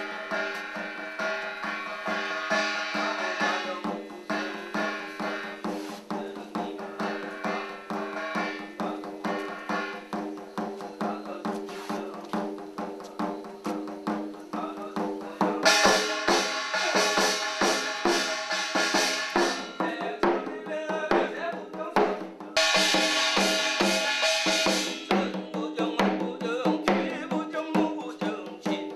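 Korean shamanic ritual (ssitgimgut) music: janggu hourglass-drum strokes under layered, held melodic notes. The music swells louder and brighter about sixteen seconds in, eases off near twenty seconds, and swells again briefly a few seconds later.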